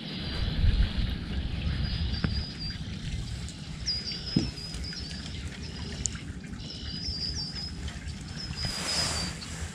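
A small bird chirping in several short runs of quick, high notes. A low rumble on the microphone fills the first two seconds.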